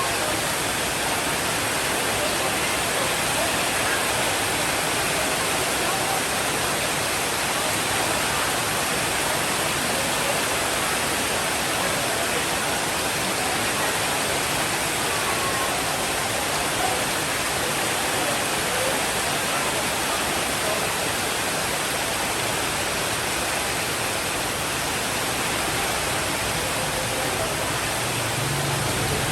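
Steady, even rainfall hiss with no distinct thunderclap.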